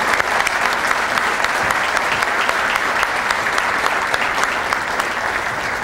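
Audience applauding steadily, the clapping starting to die down near the end.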